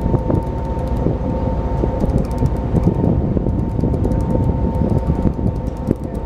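Steady drone of a large fishing boat's machinery, a low rumble with a constant whine held throughout.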